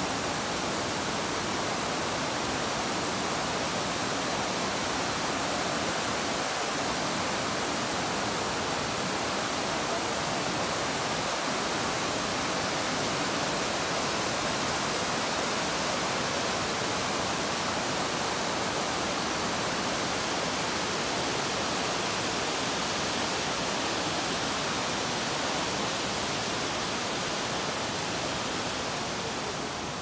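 Waterfall cascading down rock terraces: a steady rushing hiss of water that eases slightly near the end.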